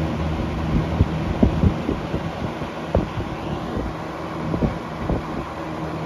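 A 1981 Lakewood P-223 20-inch box fan running at speed: a steady hum, with its airflow buffeting the microphone in irregular low thumps.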